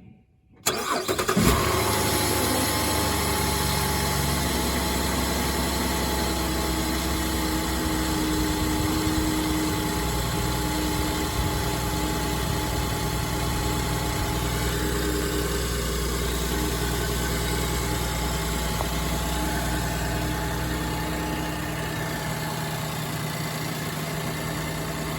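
Car engine cranked and catching about half a second in, then idling steadily, settling a little quieter near the end.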